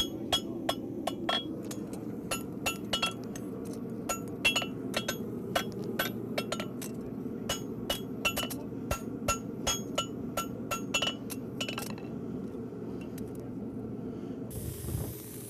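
A farrier's hammer striking a steel horseshoe on an anvil, bright ringing blows about two or three a second, to flatten the base of the toe clips and draw them up. The hammering stops about three-quarters of the way through, and a steady hiss starts near the end.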